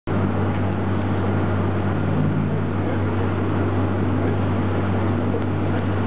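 Tour boat's engine running with a steady low drone under a constant rushing noise.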